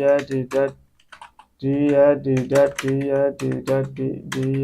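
Computer keyboard typing: a fast run of keystroke clicks with a short lull about a second in, then typing again, over a steady low pitched hum.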